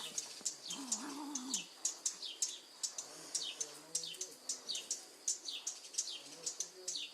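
Small birds chirping: repeated short, high chirps that each drop in pitch, a few per second and often in pairs. About a second in comes a brief low wavering cry.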